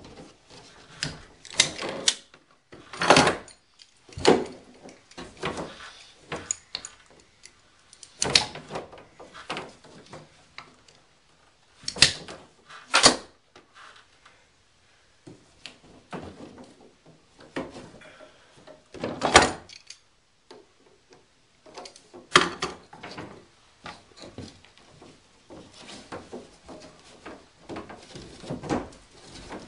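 Hand tools and PEX pipe being worked: irregular knocks and clicks, a handful of sharp louder ones among quieter handling rattles.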